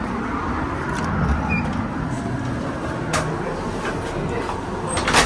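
An old pub's front door being opened and walked through: a few sharp clicks and knocks of the latch and door over a steady low rumble.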